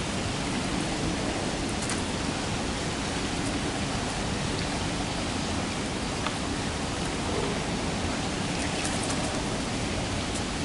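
Steady hiss of water running over the rocks of a courtyard pond feature, with a few faint ticks.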